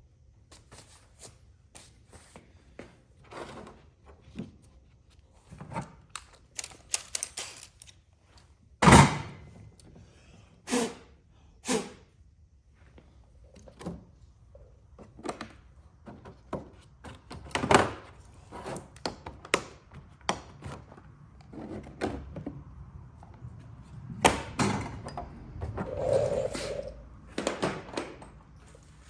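Hand tools and thread repair kit parts being handled and put away: scattered knocks, clicks and clinks. One sharp thunk about nine seconds in is the loudest.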